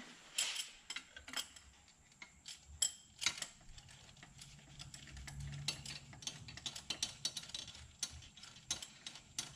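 Ratchet wrench clicking in quick, irregular runs as a bolt is turned in on a 2003 Subaru Forester's engine.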